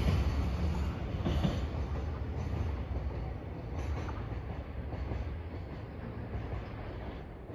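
Freight train running along the line, its low rumble slowly fading as it moves away, with a few faint wheel clicks.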